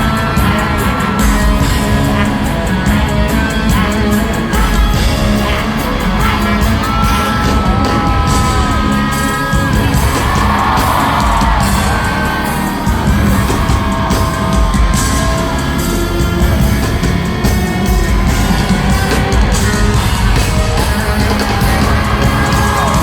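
Live concert music played loud over a hall PA: a steady, heavy bass beat with long held tones, and a crowd yelling and singing along.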